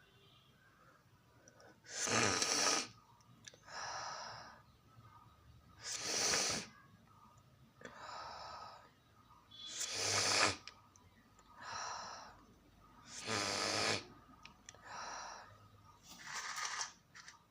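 A person breathing close to the microphone in long, loud sniffs through the nose, five times about every four seconds, each followed by a quieter breath out.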